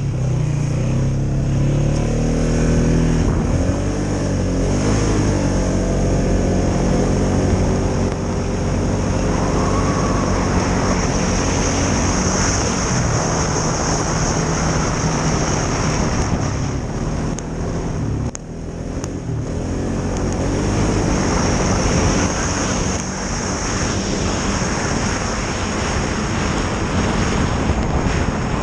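2016 Polaris Sportsman 570 ATV's single-cylinder engine running under way, its pitch rising and falling with the throttle. The engine note drops briefly about eighteen seconds in, then picks up again.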